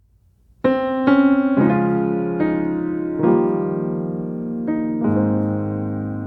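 Piano music: a gentle melody of single notes and chords that begins about half a second in.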